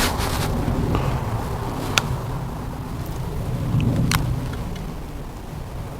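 Wind buffeting the microphone, a steady low rumble, with a few short sharp clicks about two seconds apart.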